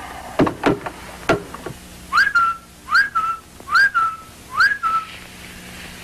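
A telephone handset drops and clatters on the floor near the start. Then someone whistles four short bird-like calls through the phone, about one a second, each a quick upward slide followed by a slightly lower held note.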